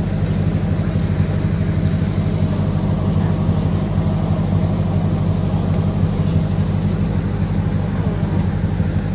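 Steady low drone of an engine running.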